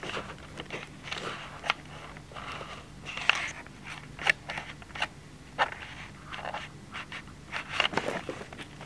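Irregular rustling and scraping with scattered sharp clicks, the handling noise of a camera held close in a small room, over a faint steady low hum.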